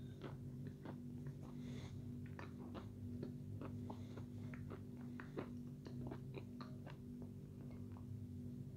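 A person chewing food with the mouth closed: soft, irregular wet mouth clicks, heard over a steady low hum.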